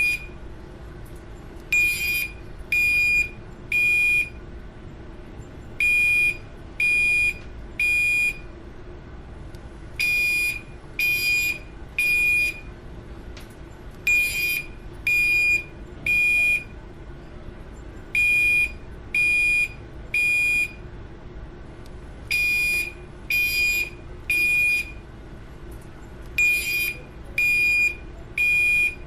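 Building fire alarm sounding the temporal-three evacuation pattern: three short, high-pitched beeps about a second apart, then a pause, repeating about every four seconds. A faint steady low hum runs underneath.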